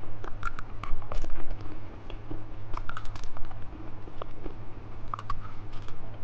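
Irregular sharp clicks and crinkles of candy packaging being handled and opened, over a faint steady low hum.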